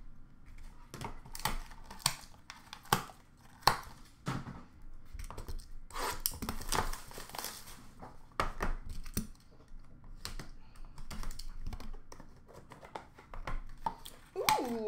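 A trading-card box being opened and its packaging handled: a string of sharp clicks and knocks of cardboard and plastic, with a stretch of tearing and rustling about six to seven and a half seconds in.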